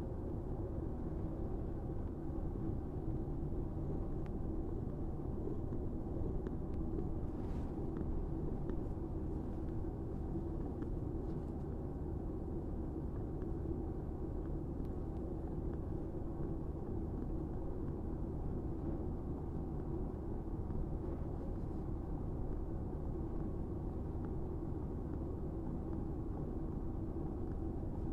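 Domestic cat purring steadily and close up as its head is stroked: a continuous low rumble with a crackly, popping texture.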